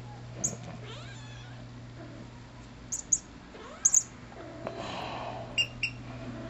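A seven-month-old, mostly Bombay cat giving drawn-out meows and yowls with a plush toy at her mouth. A few short, high squeaks come in between, the loudest of them twice near the middle and twice near the end.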